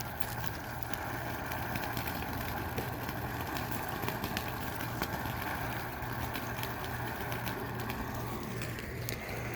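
Small fountain firework spraying sparks: a steady hiss with scattered sharp crackles.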